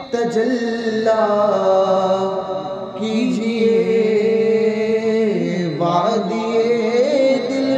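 A naat, an Urdu devotional poem, chanted by a single voice in long held notes that glide slowly from pitch to pitch.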